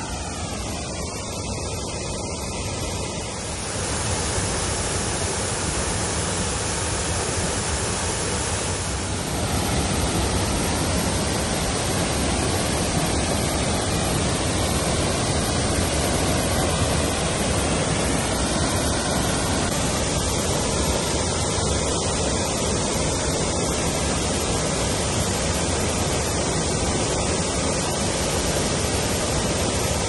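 A low waterfall pouring over a rock ledge on a forest river: a steady rush of falling water that grows louder about four seconds in and again near nine seconds.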